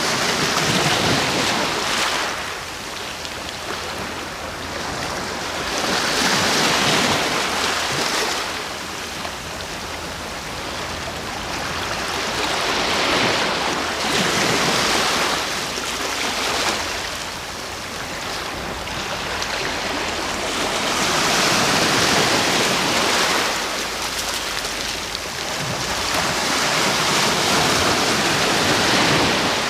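Ocean waves breaking on the shore in slow surges, the hiss of surf rising and falling five times about seven seconds apart.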